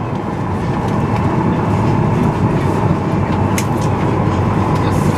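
Steady air and ventilation noise inside a Boeing 737-900ER cabin parked at the gate, with one light click about three and a half seconds in.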